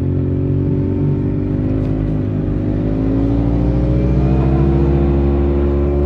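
Motorcycle engine under steady acceleration, its pitch climbing slowly and evenly before levelling off near the end.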